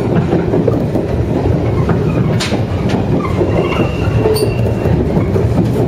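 JR 103 series electric train running, heard from inside the cab car: a loud, steady rumble of wheels on rail with a couple of sharp clacks and a brief high squeal from the wheels in the second half.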